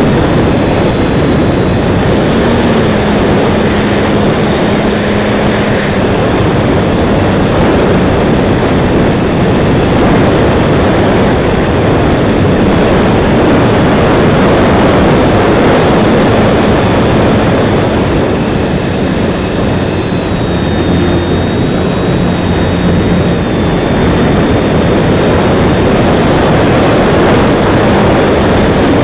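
Onboard audio of a FunCub RC model plane in flight: its electric motor and propeller running, heard as a loud, steady rush of air and prop noise over the camera, with a faint motor hum that shifts a little in pitch now and then.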